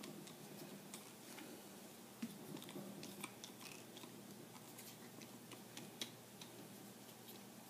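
Faint small metallic clicks and ticks from a screwdriver turning a short screw out of a rifle receiver. Two slightly louder clicks come about two seconds in and about six seconds in, over a low steady hum.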